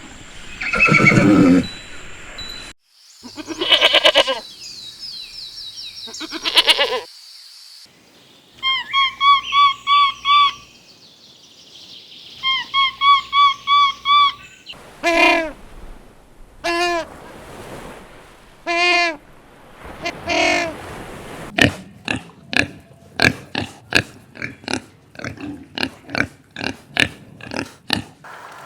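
A string of different farm animal calls, one clip after another, each with its own pitch and pattern, ending in a run of quick sharp clicks.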